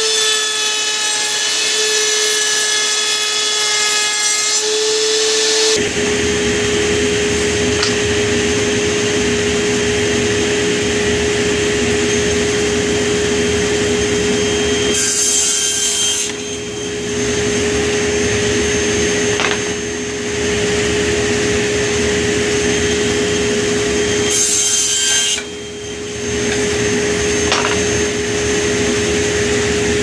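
A benchtop router table whining steadily as it rounds over the edges of a wooden strip. About six seconds in the sound changes abruptly to a table saw running while wooden strips are crosscut into short pieces, with brief dips in the noise between cuts.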